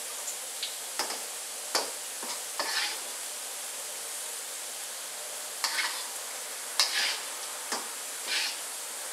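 Oil sizzling steadily in a wok while fried onion and garlic slices are scooped out with a wire mesh strainer. Several sharp metal clinks of the strainer against the wok and colander sound through it, with a few brief louder swishes as it moves through the oil.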